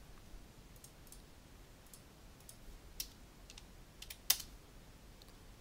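A few sharp computer mouse button clicks, spread over the second half, the loudest a little past four seconds in.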